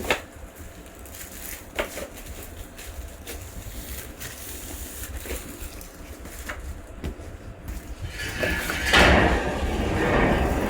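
Wooden pieces knocking now and then over a steady low hum, then from about eight seconds in a louder, rough scraping noise.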